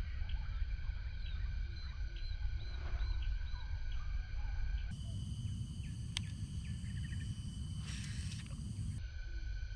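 Outdoor ambience by a pond: a steady low rumble under a steady high-pitched drone, with a quick run of about six small bird chirps in the first second and a half. A single sharp click about six seconds in and a brief hiss about eight seconds in.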